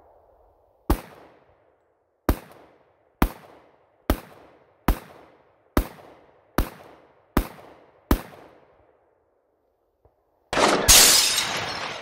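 SIG pistol fired nine times at a steady pace, about one shot a second, each shot sharp with a short echo trailing off. Near the end a loud burst of noise from an edited-in sound effect begins.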